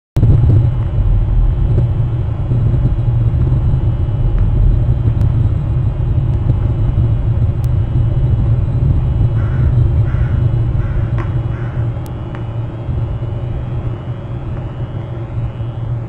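Steady low rumble picked up by an outdoor nest-camera microphone, fluctuating slightly and easing a little near the end. A few short, higher-pitched sounds come through about nine to twelve seconds in.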